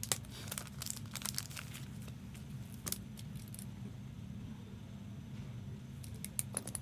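Scattered light clicks and taps, a few close together near the start, around a second in, near three seconds and again near the end, over a steady low hum.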